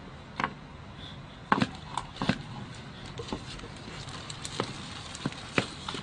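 Tortoise shells knocking together in a string of sharp, irregular clacks, the loudest about a second and a half in, as one tortoise butts into the other from behind.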